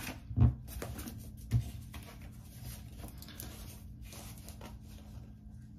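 A deck of Bible verse cards being handled while one card is drawn: scattered rustles and light taps, with two low knocks in the first two seconds, growing quieter after about four seconds.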